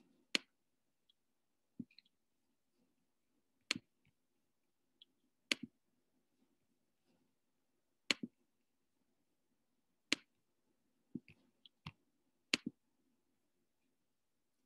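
Sharp, short clicks, one every second or two at irregular spacing, over a faint steady low hum.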